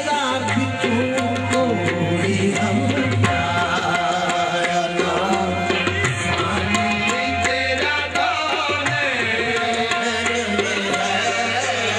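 Live qawwali music: fast hand drumming with many sharp strokes under a continuous, wavering melodic accompaniment.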